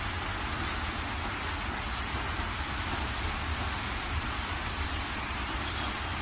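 Water rushing through the open spillway gates of the Upper Wardha dam: a steady noise with a deep rumble underneath, unchanging throughout.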